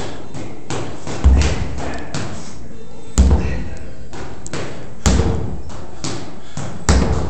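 Sledgehammer striking a large rubber tire: four heavy, dull thumps about two seconds apart.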